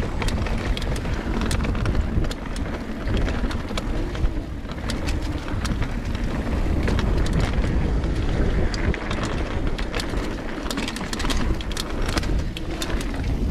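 Mountain bike rolling fast down a dirt flow trail: steady wind rumble on the microphone and tyre noise on dirt, with frequent sharp clicks and rattles from the bike and trail grit.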